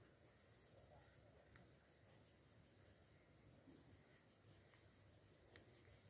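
Near silence: faint steady background hiss, with two faint clicks.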